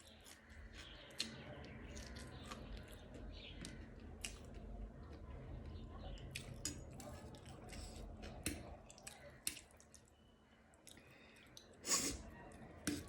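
A person eating: chewing with wet mouth noises and many sharp little clicks and smacks, and a louder crunchy click about twelve seconds in.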